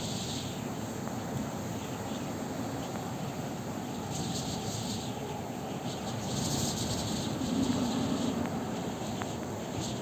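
Blizzard wind blowing steadily, with stretches of louder high hiss from gusts and driven snow about four and six and a half seconds in.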